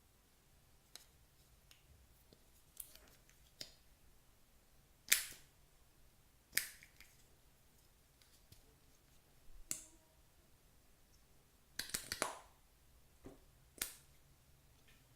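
Clear slime being mixed by hand, giving scattered sharp pops and clicks over a quiet background, the loudest about five and six and a half seconds in and a quick cluster of them about twelve seconds in.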